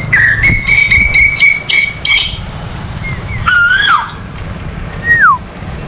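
Asian koel calling: a quick run of about seven short, sharp notes over the first two seconds, then a single call that rises and falls, and a short falling whistle near the end.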